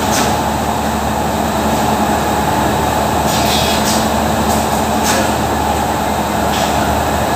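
Loud, steady drone of running factory machinery: a continuous rushing noise over a low hum, with a few light clicks about three and five seconds in.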